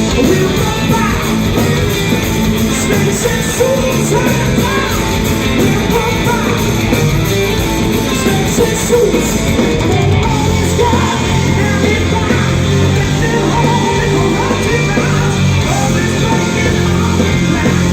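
Live rock band playing loudly, with singing over the band.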